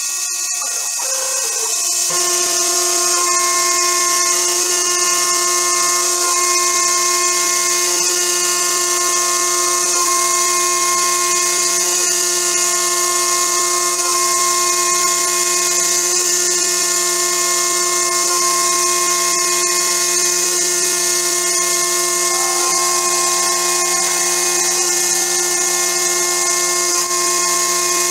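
Spindle of a homemade CNC milling machine running with a steady high whine as a 4 mm HSS end mill cuts contours into a metal plate; the sound settles to full strength about two seconds in.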